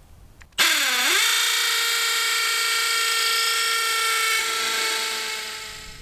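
Cordless drill running: the motor spins up with a quick rising whine, holds a steady pitch for about four seconds, then fades out.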